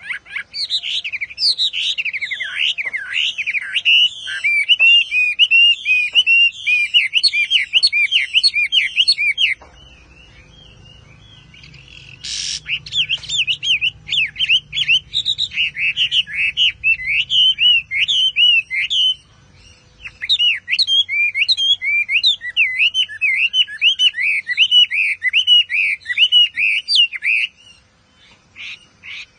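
Caged Chinese hwamei singing a loud, fast, varied song of whistled notes. It breaks off for about three seconds a third of the way in, starts again just after a single sharp click, pauses briefly about two-thirds in, then stops near the end.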